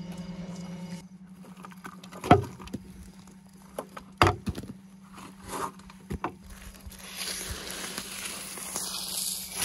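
A cleaver-style knife knocking and breaking through a baked mud crust around a fish: several sharp knocks and crumbling chunks. Near the end comes the crinkling of aluminium foil as the knife cuts open the wrapping.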